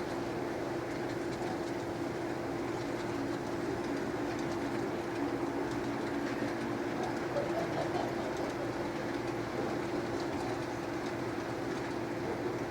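Model train running along the club layout's track, a steady hum.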